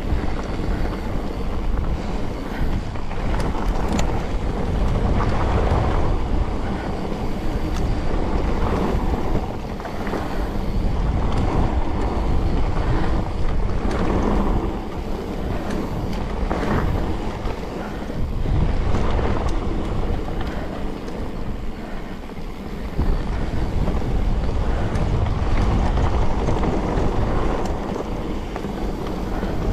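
Wind buffeting the microphone of a mountain biker riding a trail, a loud rushing that swells and eases every few seconds, with a few light clicks and rattles from the bike.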